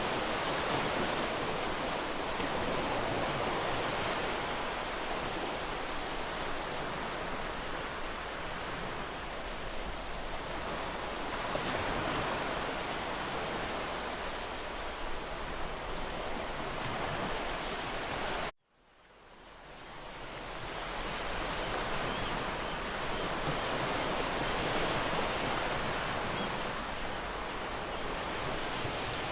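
Waterfall rushing, a steady, even roar of falling water. About two-thirds of the way through it cuts out abruptly and fades back in over a second or two, an edit point in the recording.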